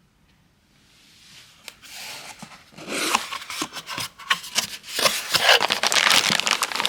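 Rustling and scraping with many sharp clicks, swelling from faint to loud over the first few seconds.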